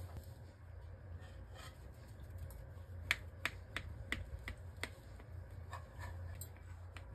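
Knife cutting a soft baked semolina cake on a ceramic plate: faint sharp clicks of the blade against the plate, a quick run of them about three a second in the middle.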